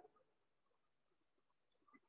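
Near silence: room tone, with one faint tick near the end.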